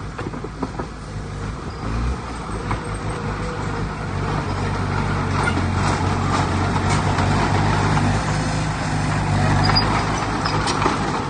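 Heavy diesel earthmoving machinery running under load, its engine note steady and growing louder about four seconds in, with scattered knocks and clatter.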